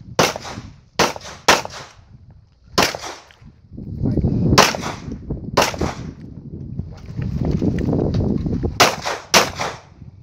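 About nine 9mm pistol shots from a Glock 34 during a practical-shooting stage course of fire. The shots come singly and in quick pairs, unevenly spaced as the shooter moves between positions. A low rumble fills the gaps between them.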